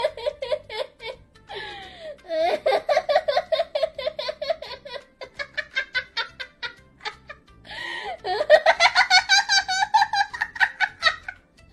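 A woman laughing in a very high-pitched voice: long runs of rapid giggling with short breaks between, the last run the loudest.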